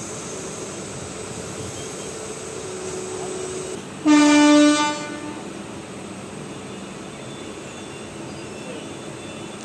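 An Indian Railways train horn sounds one short blast of a single pitched tone, under a second long, about four seconds in. Under it is the steady rumble of the passenger train running along the line.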